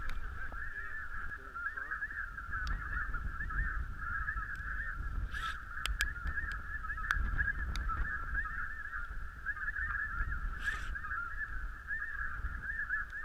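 A dense, continuous chorus of snow goose calls, many overlapping high calls running together without a break. A few faint clicks sound around the middle.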